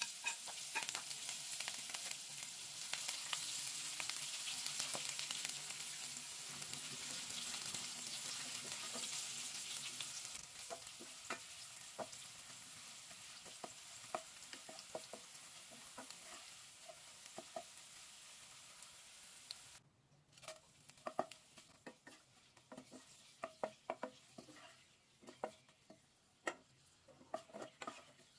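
Sliced shallots frying in hot oil with a loud steady sizzle, stirred with a wooden spatula; the sizzle fades slowly as the shallots turn golden and crisp. About two-thirds through the sizzle cuts off, and a wooden spatula knocks and scrapes in a nonstick pan with a little oil.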